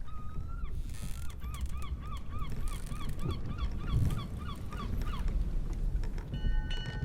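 Seagulls calling: one drawn-out call, then a rapid run of short, repeated calls, over a steady low rumble of sea and wind. Near the end a steady tone of several pitches starts.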